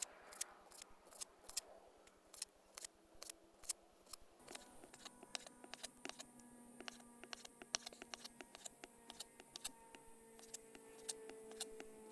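Sushi knife slicing raw chicken breast thin on a plastic cutting board: the blade taps the board with each stroke, an even run of about two or three sharp clicks a second.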